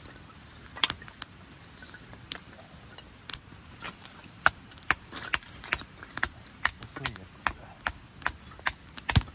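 Wood campfire crackling, with frequent sharp, irregular pops about two a second. Near the end comes one heavier knock, a hatchet striking into a stick of kindling.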